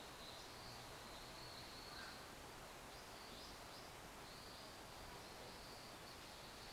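Faint outdoor garden ambience: a steady low hiss with high, wavering chirping that comes and goes in short spells.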